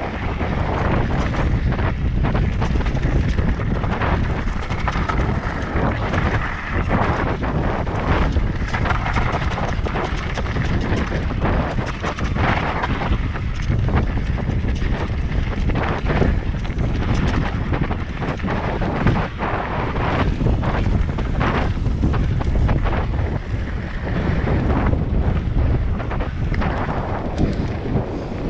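Steady wind buffeting the microphone of a camera carried on a moving e-bike, with frequent short knocks and rattles throughout.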